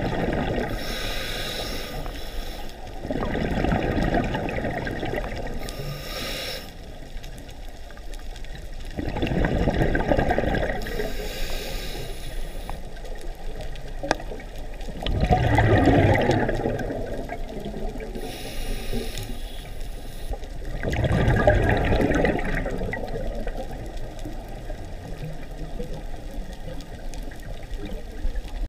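Scuba diver breathing underwater through a regulator: a short hiss on each inhale, then a gurgling rush of exhaled bubbles, about five slow, even breaths.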